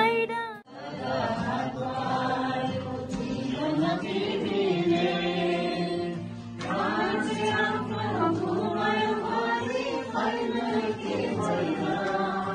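A group of people singing a hymn together. The sound drops out briefly about half a second in, then the singing carries on.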